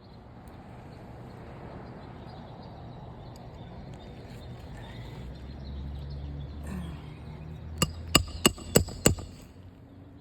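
Five quick, sharp hammer strikes near the end, driving a roofing nail into a shingle during a shingle repair.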